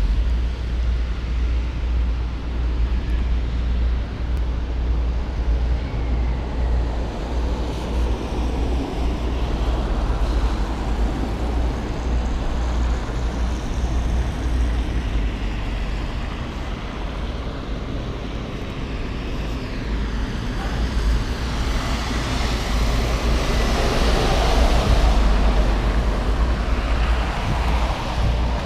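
Road traffic on a wet street with a steady low rumble of wind on the microphone; a louder vehicle sound swells from about 22 seconds in and fades near the end.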